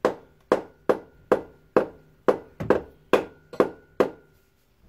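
About ten sharp taps, roughly two a second, each with a short ringing metallic note, struck at the stuck sump pan of a Ford Mondeo MK3 ST220 to break it free from its old gasket so it will drop onto the lowered jack.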